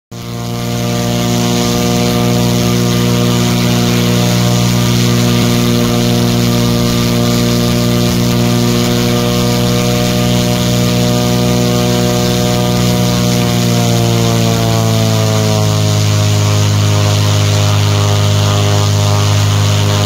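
Cessna 206's Continental IO-550 six-cylinder engine, cowling off and propeller turning, running steadily on a ground engine test. About two-thirds of the way through, the engine speed falls smoothly to a lower steady speed.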